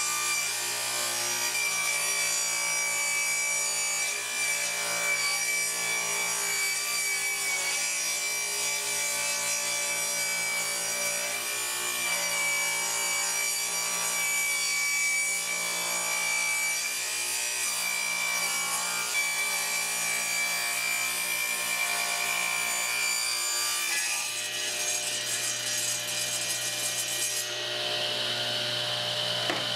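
Sears Craftsman radial arm saw running with a steady high whine, its blade ripping a 3/8-inch-thick pine board into 3/8-inch strips.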